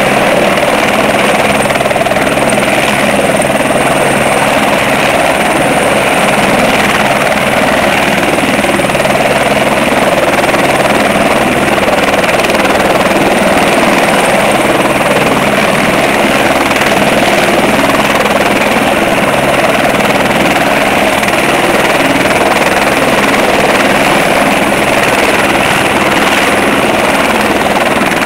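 Light helicopter hovering just above the helipad and settling onto its skids, main rotor and engine running steadily and loudly.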